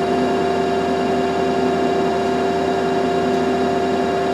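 Okuma LB-200MW CNC lathe's sub spindle running at 2,000 RPM: a steady machine hum with an even whine of several constant tones that does not change.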